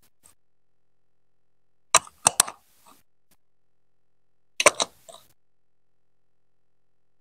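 Plastic Lego Duplo pieces being pressed onto a Duplo baseplate: a quick cluster of three sharp clicks about two seconds in, and another short cluster just before five seconds.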